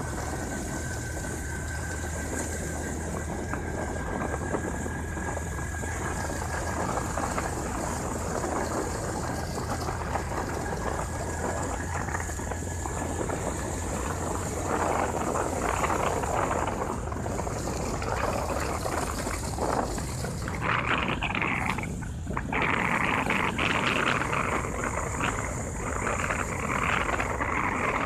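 Vehicle driving along a winding road: steady engine and road noise, with a louder rushing hiss coming and going from about halfway through.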